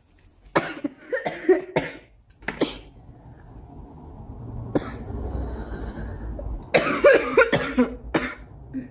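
A girl coughing in fits: a run of several rapid coughs in the first few seconds, then another fit of coughs about seven seconds in, with a low rumble between them.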